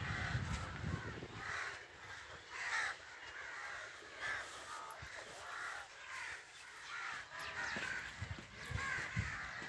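Crows cawing repeatedly, a call roughly every second, fairly faint.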